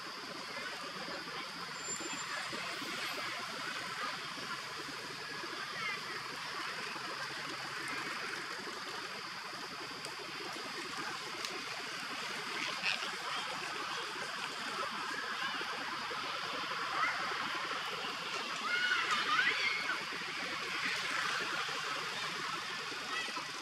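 Steady outdoor hiss, with a few short high warbling calls around the middle and a louder cluster of them about three-quarters of the way through.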